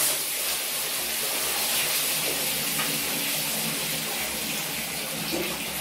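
Water running steadily from a wall tap into a partly filled plastic bucket.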